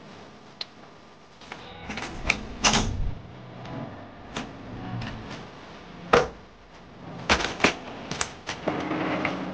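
Handling sounds from bathroom accessories and towels: scattered sharp clicks and knocks with some rustling. The loudest knock comes about six seconds in, then two quick clicks and a busier run of taps near the end.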